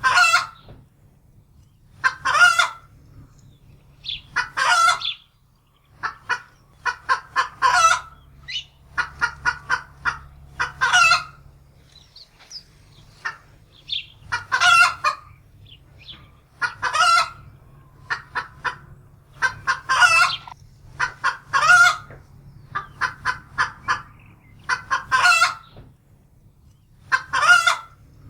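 Domestic hen cackling in alarm: repeated runs of quick clucks, each ending in a longer, louder squawk, every two to three seconds.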